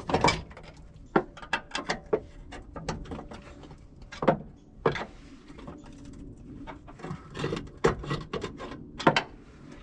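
Irregular metallic clicks and knocks of hand tools working against the cab lift cylinder's mounting pin and bracket, with a few sharper knocks among them.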